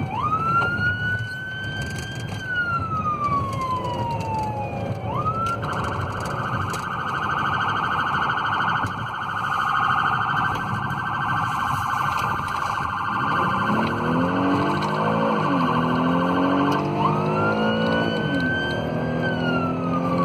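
Police car siren heard from inside the cruiser on the move: a slow wail rising and falling, switching about five seconds in to a fast warble for around eleven seconds, then back to the wail. A lower-pitched sliding tone sounds underneath the siren in the last several seconds, over steady engine and road noise.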